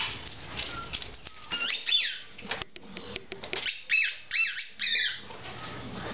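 A squeaky ball chewed in a dog's mouth, giving a few groups of short, high squeaks, the loudest about two seconds in and again about four to five seconds in.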